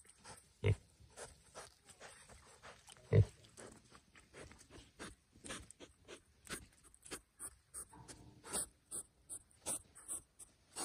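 Piglets rooting in wet mud close to the microphone: a steady run of small, wet clicks and snuffles, with two short, loud low sounds, one just under a second in and one about three seconds in.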